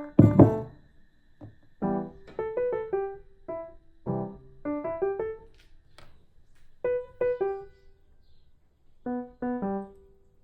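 Instrumental background music: a simple melody of single notes that die away quickly, played in short phrases. A louder cluster of notes comes right at the start.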